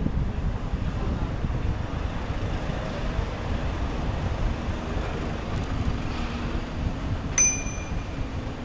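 Wind buffeting the microphone of a moving bicycle, a fluctuating low rumble, with a faint steady hum in the latter half. One short, sharp metallic ping rings out about seven seconds in.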